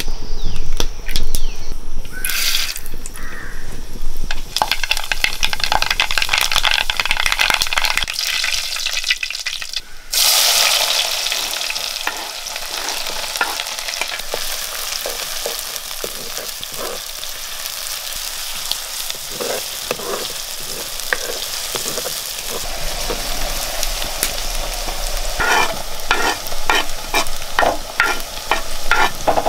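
A few loud knocks at the start, then hot oil crackling and sizzling in a pan as ingredients fry. The sizzle jumps suddenly louder about ten seconds in, then settles to a steady sizzle. Spatula stirring strokes come in the latter part.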